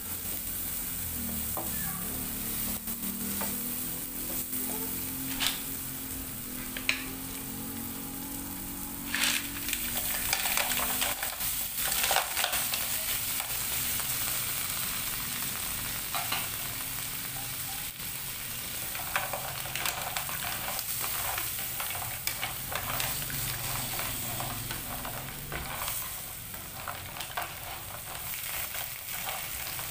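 Aromatics and green mussels sizzling in a nonstick wok while a wooden spatula stirs and scrapes them, with scattered sharp clicks. About ten seconds in, a louder stretch of clatter as the mussels in their shells go into the pan and are turned.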